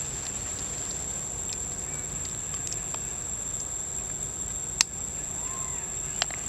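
Forest insects giving a steady high-pitched drone over a low background hiss, with one sharp click about five seconds in and a couple of fainter clicks near the end.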